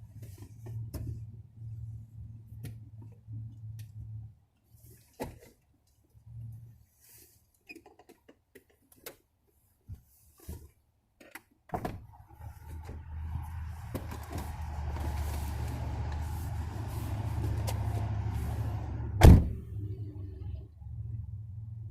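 Scattered light clicks and knocks, then a motor starts about twelve seconds in and runs with a steady low hum for about seven seconds, broken near the end by a single loud thump.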